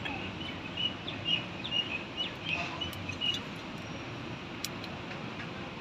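Birds chirping in short, repeated calls during the first half, over a steady background hiss, with a couple of faint clicks later on.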